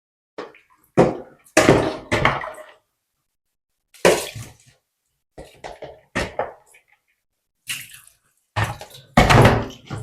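Water sloshing and pouring in short splashy bursts with pauses between, as washed rice is drained through a sieve.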